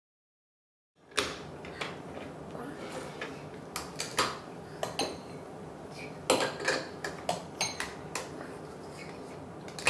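Digital silence for about a second, then irregular sharp clacks and clicks of plastic Duplo bricks and tableware knocking on a wooden table.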